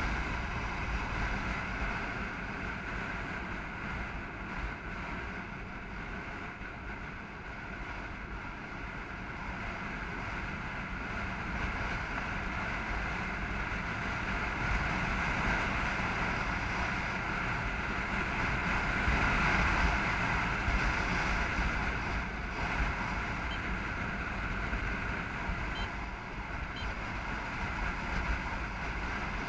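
Wind rushing and buffeting over the microphone of a camera riding on a moving motorbike, a steady noise with a low rumble, mixed with road and engine noise.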